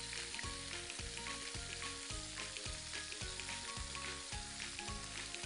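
Minced-meat kebabs sizzling steadily as they shallow-fry in a little oil in a frying pan.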